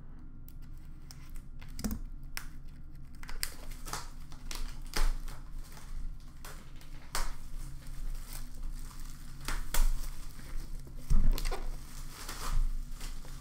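Plastic shrink wrap crinkling and tearing as it is pulled off a sealed trading-card box, with many sharp crackles. There is a dull knock of the cardboard box about two-thirds of the way in and a louder one near the end.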